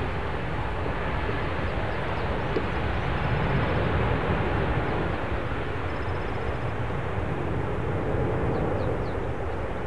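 Twin jet engines of a Boeing 787-9 airliner running on the runway, a steady loud rumble that swells slightly about three to four seconds in.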